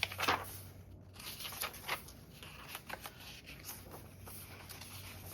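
Paper and card pieces being handled on a work table: scattered short rustles and light taps as the pieces are picked up and moved, the strongest one at the very start.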